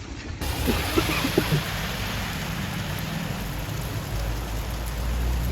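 Rain falling steadily, an even hiss that starts abruptly about half a second in, with a low rumble coming in near the end.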